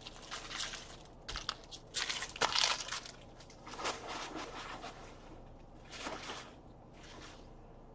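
Trading card packs and wrappers being handled: several short bursts of crinkling and rustling of foil and paper.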